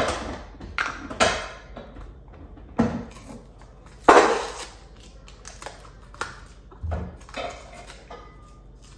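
A seasoning container being handled and shaken over meat, with a few separate knocks and rattles, the loudest about four seconds in.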